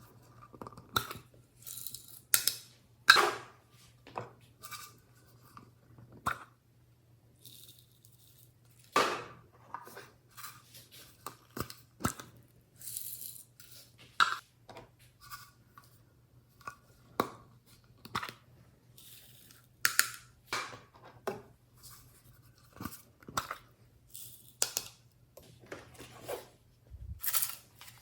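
Glossy slime being squeezed and worked by hand, giving irregular sticky clicks and pops.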